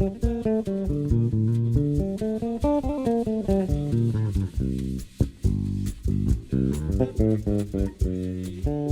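Bass guitar playing a choro melody in quick runs of single plucked notes climbing and falling, with a short break about five seconds in.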